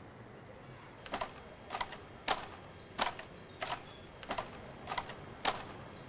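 Camera shutter firing again and again: about eight sharp clicks, some doubled, at fairly even intervals of about two-thirds of a second, starting about a second in over a steady high whine.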